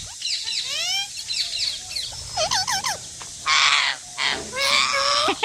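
Baby green parrot calling: a few rising whistled chirps, then a quick run of short chirps, then two harsh, raspy squawks in the second half.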